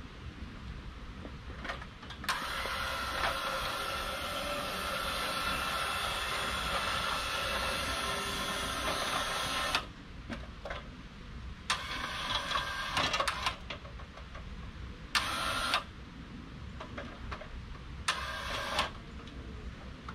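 A machine running in abrupt bursts: one long run of about seven and a half seconds, then three shorter ones, each starting and stopping suddenly.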